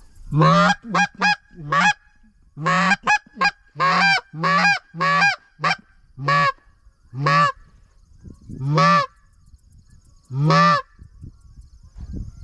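Hand-blown goose call sounding a run of about fifteen short, loud honks. They come quickly at first, then singly a second or two apart, each note breaking upward in pitch and falling back. It is the hunter's barking call, meant to lure passing geese to break off from the flock.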